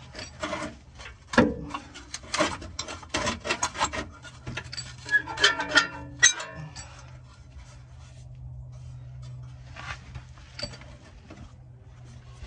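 Rusted exhaust pipe and catalytic converter being wrenched up and down by hand, metal clanking and rattling in a quick run of knocks for about six seconds, then only an odd knock, over a steady low hum. It is being worked back and forth to snap off a seized, rusted flange bolt.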